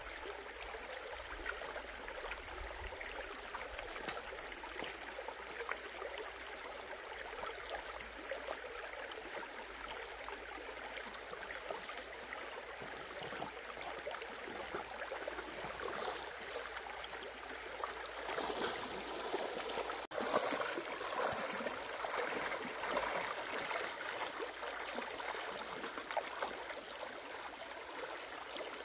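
Shallow stream running steadily over stones. About two-thirds through, the sound cuts to a louder stretch of moving water with splashing as a person wades knee-deep through the stream.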